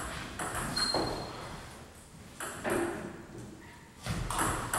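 Table tennis ball clicking on the table and bats: a few sharp ticks spaced apart, with a quicker run of them near the end.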